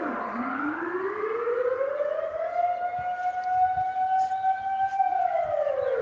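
Dutch civil-defence air raid siren wailing. Its pitch drops low right at the start, climbs back over about two seconds, holds a steady tone, then begins falling again about five seconds in.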